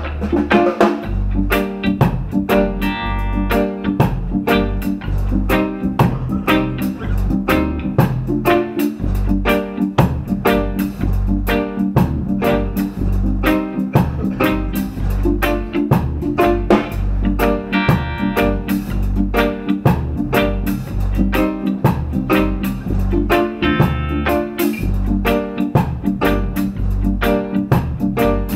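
Live band playing an instrumental passage: electric guitar strumming over drums with a steady beat, no vocals.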